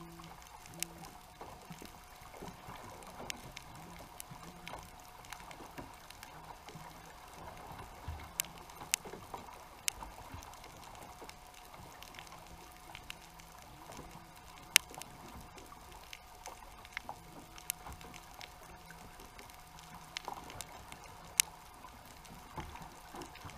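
Underwater ambience picked up through a GoPro's housing on a reef 80 feet down: a faint hiss scattered with sharp clicks, over a faint steady hum and a low pulsing drone that comes and goes.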